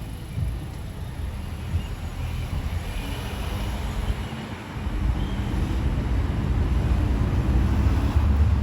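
Vehicle road noise: a steady low rumble that grows louder over the last few seconds.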